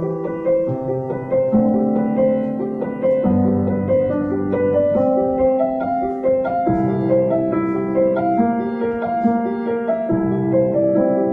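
Background piano music: a gentle flowing melody over sustained bass notes.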